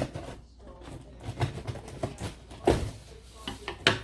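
An Amazon package being handled and opened: irregular knocks, taps and rustles, the loudest two about two and a half seconds and four seconds in.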